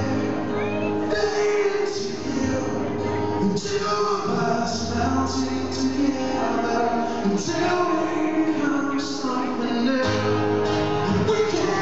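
Live solo acoustic performance: a man singing a slow melody while strumming an acoustic guitar, heard from the audience in a concert hall.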